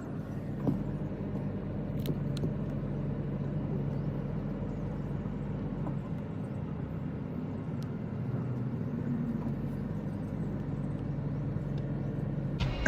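Steady low motor-vehicle engine hum, with a few faint clicks.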